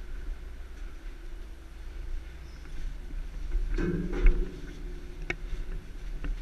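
Boots and gloved hands knocking and clanking on the rungs of a steel ladder during a climb down inside an enclosed steel shaft, with a louder ringing clank about four seconds in and sharp metallic clicks after it. A steady low rumble runs underneath.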